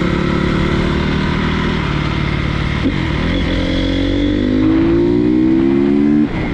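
Honda CRF250R's single-cylinder four-stroke engine running under load on a ride, holding steady, then a brief break about three seconds in and a steady rise in pitch as it revs up, cut off suddenly near the end.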